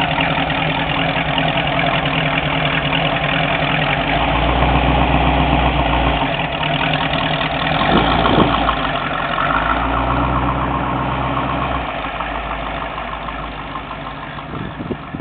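1953 Glasspar Yankee Clipper roadster's engine idling, then pulling away; the engine note fades over the last few seconds as the car drives off.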